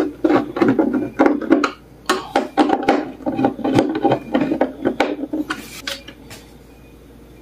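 Screwdriver turning the adjustment screw of a steel concealed cabinet hinge to reset the door's alignment: a dense run of short scraping clicks and rubs that stops about six seconds in.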